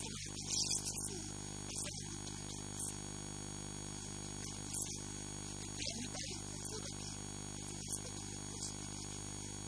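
Steady electrical hum and buzz with many overtones, a mains-type hum on the recording, broken now and then by brief faint crackles.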